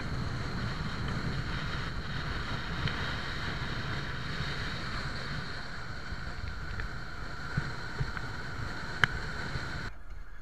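Steady road and wind noise inside a moving campervan at highway speed: low rumble of the tyres and engine under a hiss of wind. A few light clicks, a sharper one about nine seconds in, and the hiss drops off suddenly just before the end.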